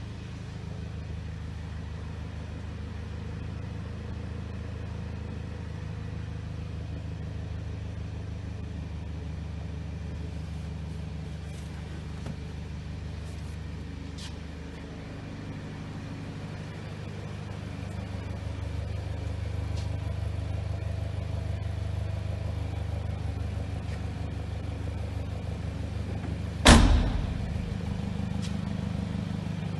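A BMW's engine idling with a steady low hum, growing a little louder about halfway through. One loud thump near the end.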